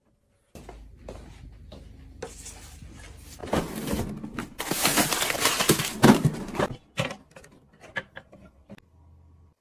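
A low hum, then about three seconds of loud rustling and sliding from a freezer drawer full of packaged frozen food, then several light metal clacks from a hand-held sandwich press on a portable gas stove.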